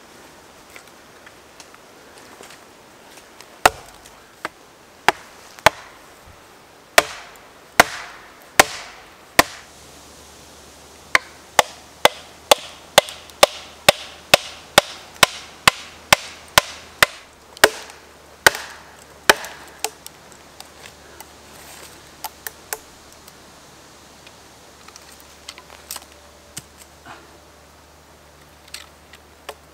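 Sharp wooden knocks of a maple log being split, its axe and wooden wedges struck with another log used as a club: scattered blows at first, a fast run of about two blows a second in the middle, then lighter, sparser knocks near the end. It is a fibrous, twisted butt log that splits with difficulty.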